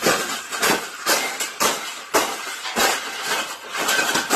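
A series of sharp knocks and rattles, about two a second, like something banging repeatedly against a hard object.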